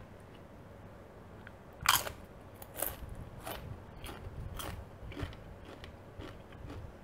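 A Doritos tortilla chip coated in creamy dip being bitten and chewed: one loud crunching bite about two seconds in, then crunchy chewing about twice a second that fades out.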